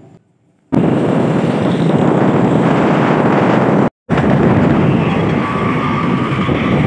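Steady road and traffic noise recorded from a moving vehicle, with wind on the microphone. It starts under a second in and cuts out for an instant about four seconds in.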